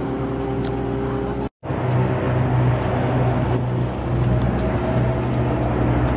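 Steady low mechanical hum with a low droning tone. It drops out to silence for an instant about one and a half seconds in, then carries on a little louder.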